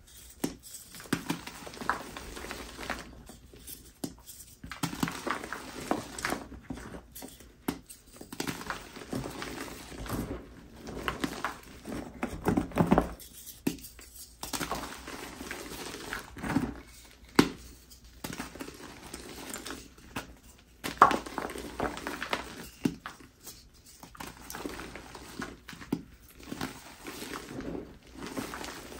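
Reformed gym chalk blocks crunching and crumbling as they are squeezed and broken apart by hand, then squished into soft powder. Irregular crunches with short pauses between them.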